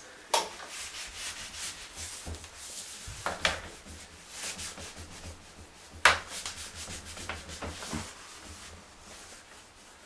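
A bleach-soaked cloth rubbed back and forth on the glass door of a front-loading washing machine, scrubbing buildup off where the door seal touches. A run of rubbing strokes, with a few louder ones about a third of a second, three and a half and six seconds in. The strokes die away about eight seconds in.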